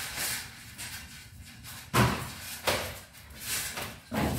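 Plastic stretch wrap rustling and crinkling as it is handled on a furniture panel, with a few sharp knocks, the loudest about two seconds in and another just before the end.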